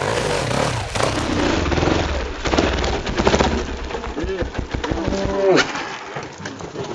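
Enduro motorcycle engine running low while the bike goes over in the gully, with knocks and clatter of the machine hitting the ground. Around the middle come drawn-out, rising-and-falling cries from a rider.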